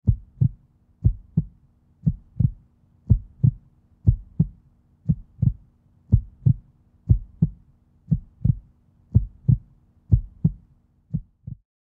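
Heartbeat: double thumps (lub-dub), about one beat a second, over a faint low steady hum. The last beats come fainter and the sound stops shortly before the end.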